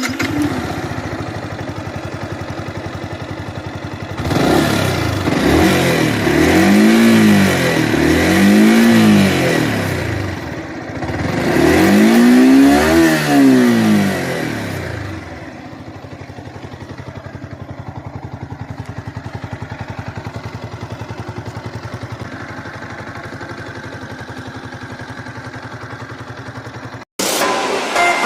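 Yamaha R15M's single-cylinder four-stroke engine idling, blipped up and down three times, then settling back to idle. Its rough tappet noise comes from loose tappets: excessive valve clearance, with exhaust about 25 instead of 20 and intake about 15 instead of 10.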